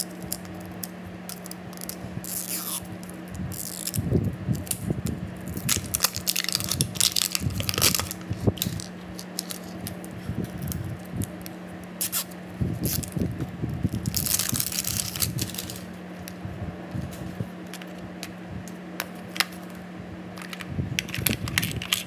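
A Toy Mini Brands capsule ball being unwrapped by hand: its plastic wrapping crinkles and peels in irregular bursts, with small sharp clicks and rustles. The ball's plastic halves are pulled apart near the end. A low steady hum runs underneath.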